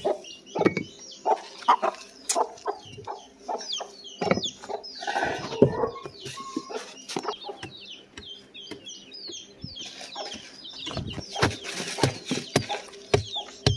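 Chickens clucking, with many short high chirps, over the scraping and rattling of dirt and small stones being cleared from a cage floor by hand and with a hand scraper. The scraping comes in two stretches, about five seconds in and again near the end.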